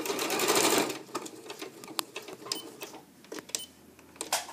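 Electric sewing machine running in a short burst of rapid stitching, about a second long, then stopping. A few separate light clicks follow.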